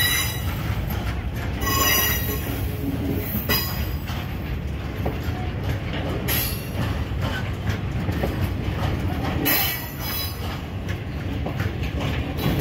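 Phosphate hopper wagons of a freight train rolling past, with a steady low rumble of wheels on the rails. Short high-pitched screeches from the wheels come every two to three seconds.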